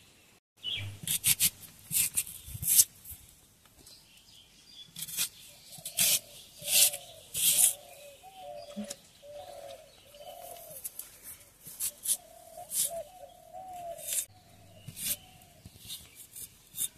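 Short, sharp scraping strokes of a knife peeling green mango, coming in irregular clusters. A bird calls repeatedly in the background, with a warbling call through the middle of the stretch.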